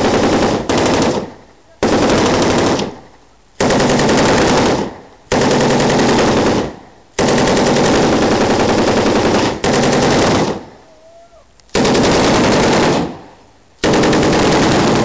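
Machine gun firing in repeated bursts of automatic fire, about eight bursts of one to two and a half seconds each with short gaps between, each burst trailing off in a brief echo.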